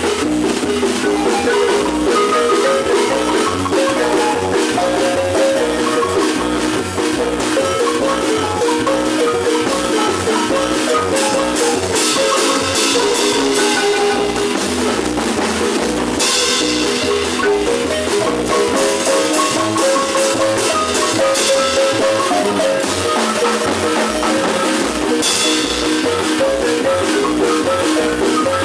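Marimba band playing lively dance music: mallets strike quick runs of ringing wooden notes over a drum kit beat, with cymbals splashing in a few times around the middle and near the end.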